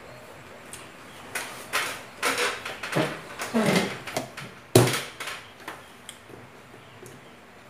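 Plastic food containers and dishes being handled on a table, rattling, scraping and knocking, with one sharp knock about five seconds in.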